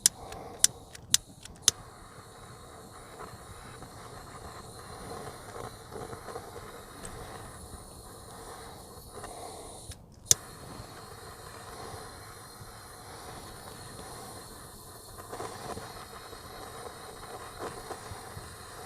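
Steady hiss of a heat tool shrinking heat-shrink tubing over a crimped wire splice, with four sharp clicks in the first two seconds and one more about ten seconds in.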